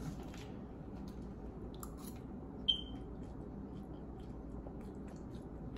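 Someone chewing a dry snack, with faint scattered crunches over a low steady hum. A short high squeak sounds about two and a half seconds in.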